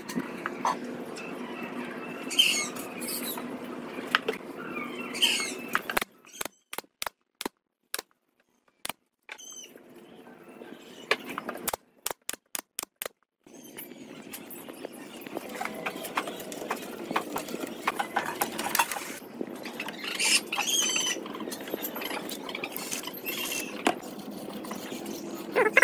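Pneumatic nail gun firing a run of sharp shots into pine boards, several in quick succession, with birds chirping in the outdoor background.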